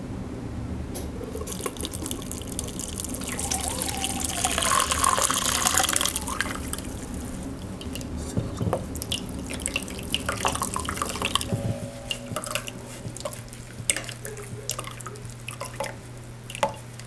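Cooked, mashed elderberries and their juice poured from a pot into a cloth-lined strainer over a stainless steel bowl, the liquid running loudest in the first few seconds. Then the juice drips and trickles into the bowl as the cloth is squeezed, with a few light knocks.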